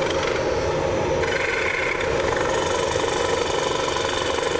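Wood lathe running while a carbide-tipped Easy Finisher cuts the inside of a spinning bowl: a steady hum and whirr with the scraping hiss of the cut. About a second in, a brighter scraping note comes in for under a second.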